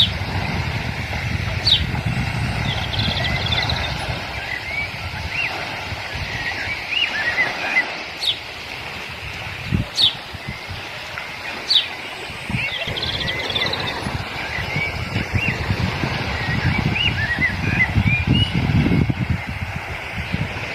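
Birds calling: sharp, high single notes every second or two, with runs of quick chirps and short trills between them, over a steady low rumble.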